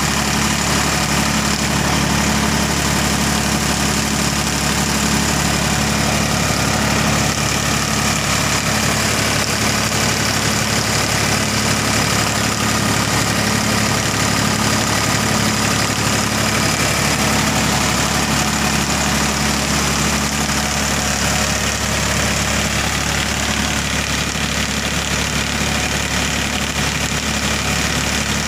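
Tractor's diesel engine running at a steady speed, driving a belt-and-pulley generator, one constant drone.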